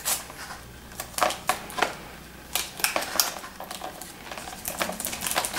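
Clear plastic cup lids and a cardboard fries box being handled and pressed together on a straw axle: irregular crackles and clicks.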